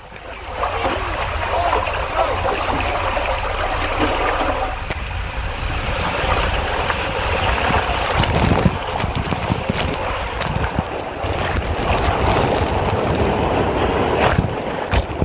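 Water rushing and a rider sliding down an enclosed plastic tube water slide: a steady, loud rushing noise with a deep rumble and occasional thumps as the body hits the tube walls.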